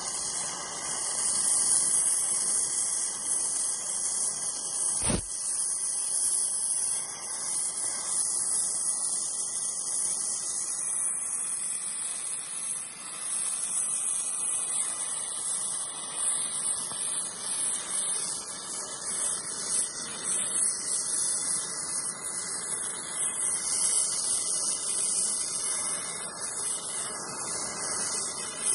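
TIG welding arc hissing steadily while filler rod is fed into a joint between a brass block and a steel plate, with one sharp click about five seconds in.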